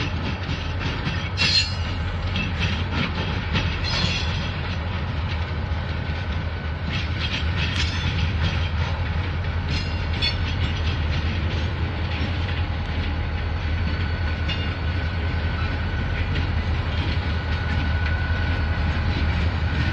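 Norfolk Southern diesel-electric locomotives running as they roll slowly through a rail yard, with a steady low engine drone and scattered clicks of wheels crossing rail joints. A thin steady whine rises near the end.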